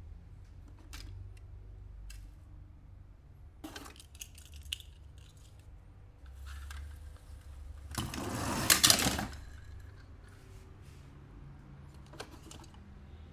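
Toy cars and plastic pieces being handled, with scattered light clicks and taps and one louder clattering rattle about eight seconds in that lasts about a second.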